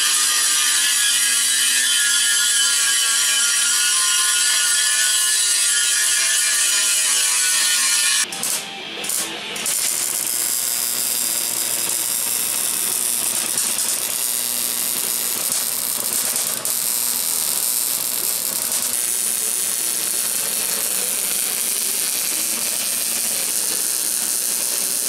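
An angle grinder cuts into a lawn tractor's steel frame for about eight seconds with a steady whine. After a couple of short breaks, a MIG welder crackles and hisses in a long steady run over a low hum for the rest.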